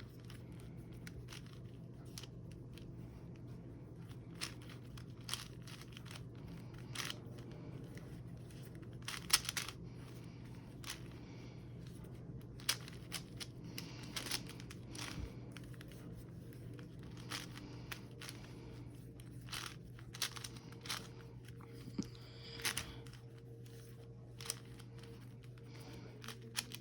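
Plastic Rubik's cube being twisted by hand: irregular clicks and scrapes of the layers turning, some in quick runs and some spaced out, over a steady low hum.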